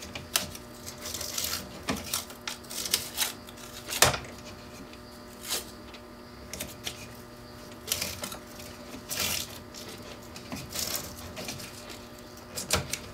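Masking tape being pulled off its roll and wrapped around a fishing rod blank, giving irregular crackling rips and small clicks as tape bushings for a reel seat are built up.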